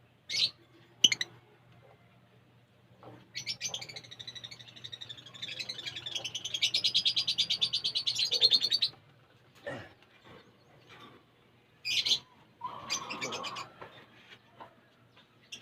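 Lovebirds calling: two sharp, high chirps, then a long, rapid, pulsing chatter lasting about five seconds, then a few more shrill chirps near the end.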